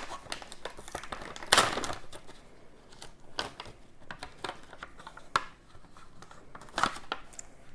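Paper-and-plastic sterile packaging of a disposable skin stapler crinkling and rustling as gloved hands open the pouch and slide the stapler's plastic tray out. The handling comes as irregular rustles and clicks, with the loudest rustle about a second and a half in and another sharp click near the end.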